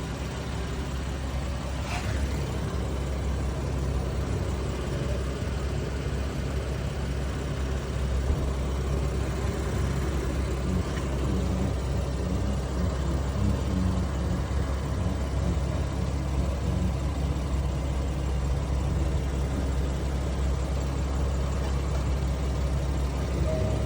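Vehicle engine running steadily with a low, constant rumble.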